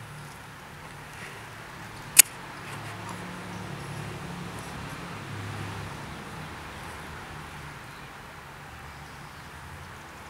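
Outdoor background noise with a low steady hum, broken by one sharp, loud click about two seconds in.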